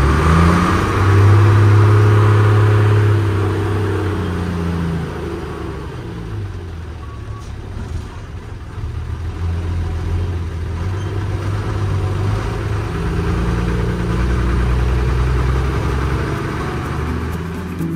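Front-mounted bus engine running under load, heard from the cab beside its engine cover; it revs up hard in the first few seconds, eases off in the middle, then builds again later on as the bus drives along.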